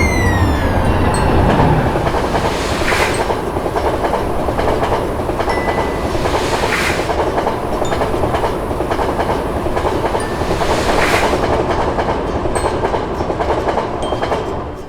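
Train passing close by: a steady rumble of wheels on rails with clickety-clack, and a brighter rattle returning about every four seconds. The tail of a horn blast slides down in pitch at the start, and the sound cuts off abruptly at the end.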